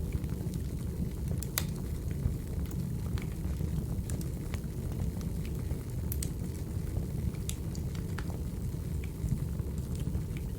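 Crackling wood fire: a steady low rumble of burning firewood with scattered sharp pops and crackles.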